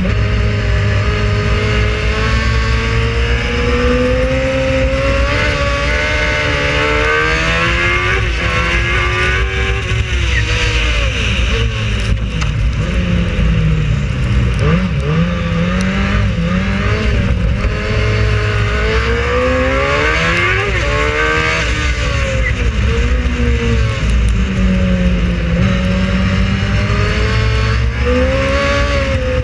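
Racing car engine running hard at race pace, its pitch climbing and dropping again and again as it accelerates, shifts and slows for corners.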